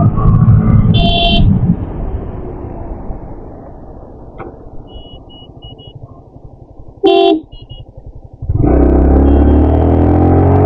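Motorcycle running on a road, with two short horn toots, one about a second in and one about seven seconds in. The engine is quieter through the middle and gets loud again about 8.5 seconds in.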